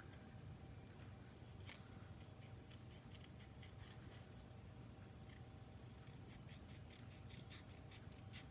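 Small craft scissors cutting out a shape from white cardstock: faint, irregular snips that come more often in the last few seconds.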